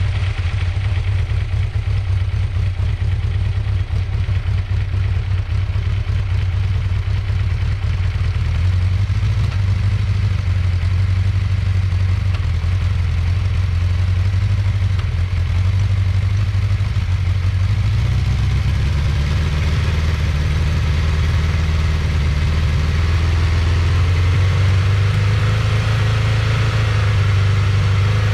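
1979 Honda CB650's air-cooled inline-four engine running at idle, its speed raised a little about eighteen seconds in and held there.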